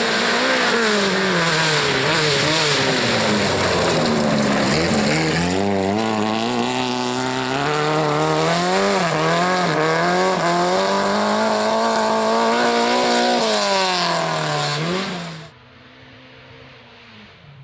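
Rally car engine revving hard on a loose gravel stage, its pitch climbing and dropping repeatedly through gear changes and throttle lifts. About 15 seconds in it cuts off abruptly, leaving only a faint low drone.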